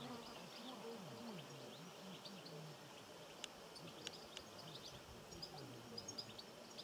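Faint outdoor ambience of small birds chirping, many short high chirps, more of them near the end, over a low, faint, repeating sound.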